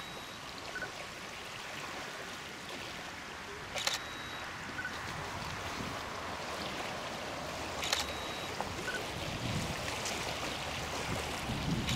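Steady outdoor wind and lake-water noise, with a sharp short click about every four seconds. Near the end, gusts of wind buffet the microphone.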